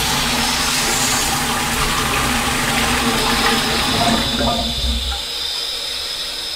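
Toilet flushing: water rushing from the cistern into the bowl. The low rush thins out about five seconds in, leaving a higher hiss.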